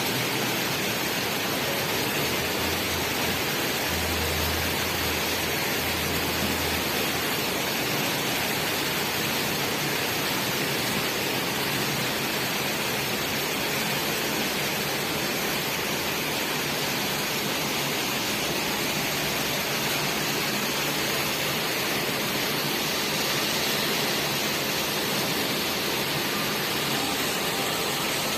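Heavy rain falling outside, a steady, even rushing hiss.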